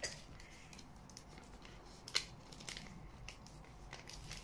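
Small paper-wrapped gift being opened by hand: faint crinkling and rustling of paper with scattered light clicks, one sharper crackle about halfway through.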